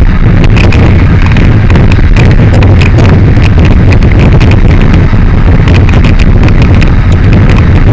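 Benelli TRK 502 parallel-twin engine running steadily at highway cruising speed, under loud wind noise on the camera microphone, crackling with frequent clicks.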